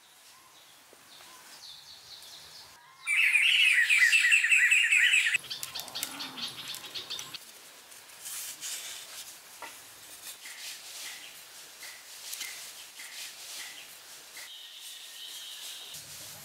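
Birds calling in woodland: a loud, fast trilling call starts abruptly about three seconds in and cuts off two seconds later. It is followed by softer chirps repeated about twice a second, over faint clicks and taps of sticks being handled.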